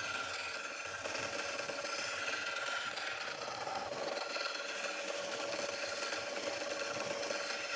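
Palm wood being worked on a running woodturning lathe: a steady scraping rasp against the spinning wood over the lathe's steady hum.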